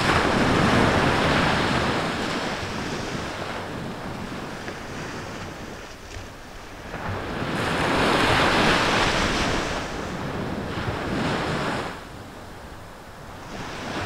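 Sea waves washing onto the shore, a surf sound that swells and ebbs: strong at the start, fading, then building to another peak about eight or nine seconds in before dropping away near the end.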